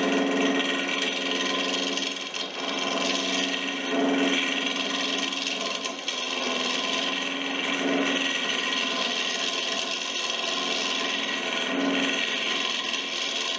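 Woodworking lathe running while a hand-held turning tool cuts into a spinning Western red cedar blank, a steady hiss of shaving over the hum of the turning stock, swelling a few times as the cut changes. The paddle loom is being turned down to fit a carbon fibre ferrule.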